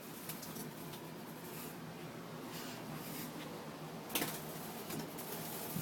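Quiet room tone with a faint steady hum and a few light knocks, the clearest about four seconds in.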